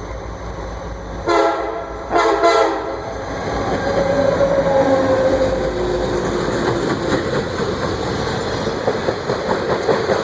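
Freight train led by EMD diesel locomotives blowing two short horn blasts about a second in, then passing loud and close. The engines' low rumble gives way to loaded stone cars clacking over the rail joints in an even rhythm near the end.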